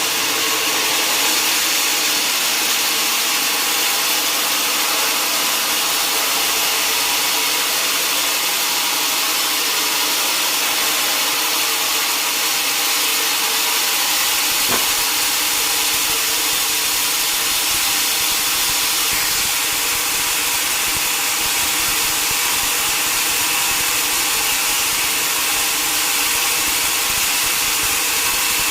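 Sawmill saw running steadily as it cuts through a mahogany log, with one short sharp knock about halfway through.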